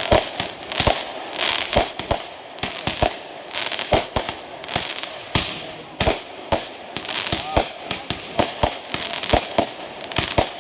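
Fireworks going off: a rapid, irregular run of sharp bangs and pops, several a second, with crackling between them.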